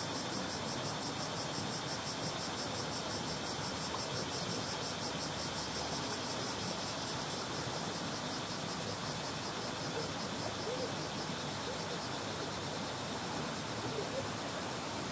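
Small shallow stream running over stones, a steady babble with a little force to it rather than a weak trickle, with summer cicadas buzzing in a fast, even pulse that fades somewhat about halfway through.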